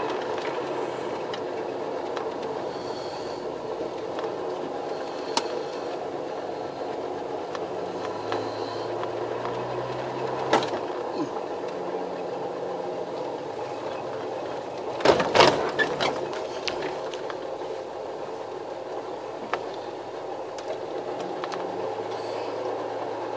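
1964 Jaguar Mark 2's 3.4-litre straight-six engine running at low speed, its pitch shifting now and then as the car drives slowly along. A few sharp knocks sound over it, the loudest a quick cluster about fifteen seconds in.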